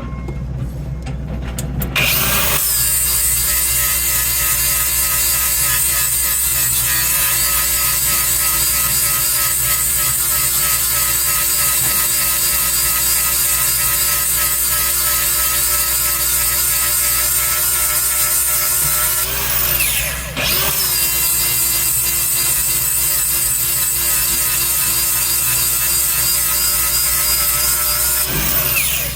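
Power grinder running steadily while grinding the worn cutting teeth on the mill of a Bandit Beast 4680 to sharpen them. It starts about two seconds in, drops out for a moment partway through, and stops shortly before the end, over a low steady hum.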